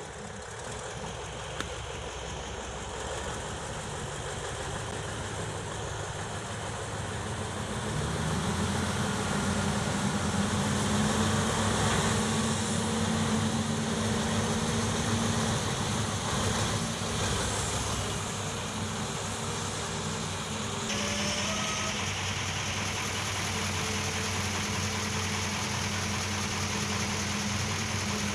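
Heavy diesel dump truck engine running steadily as the truck manoeuvres. It revs up and gets louder about eight seconds in and stays up after that.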